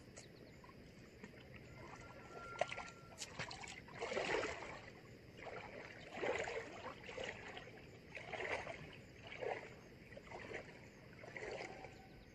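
Legs wading through shallow water, a splashing swish about once a second, as an angler steps out into the river while playing a hooked carp.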